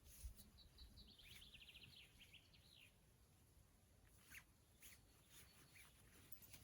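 A small songbird sings faintly: a quick trill of short repeated notes lasting about two seconds, followed by a few single chirps.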